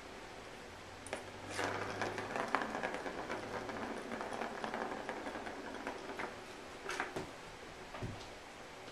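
Rustling with a quick run of light clicks and taps, then two more sharp clicks and a low thump near the end.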